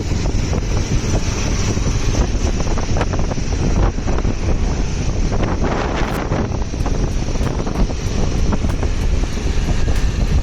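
Heavy wind buffeting on the microphone over the running noise of a moving vehicle, a steady loud rumble throughout.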